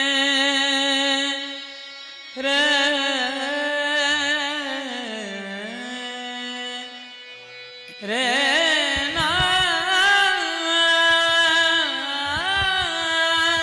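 Marathi devotional bhajan: a singer draws out long, wavering, sliding notes over a sustained accompaniment, and a hand drum joins about eight seconds in.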